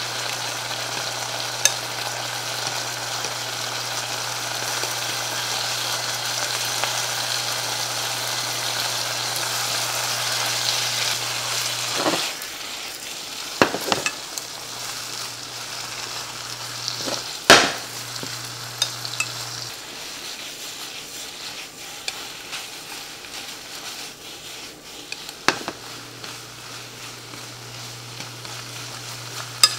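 Pork, komatsuna and scrambled egg sizzling in a nonstick frying pan while being stirred with wooden chopsticks. The sizzle is louder for the first twelve seconds and then drops lower, with a few sharp knocks against the pan and a low hum that cuts out and back in a few times.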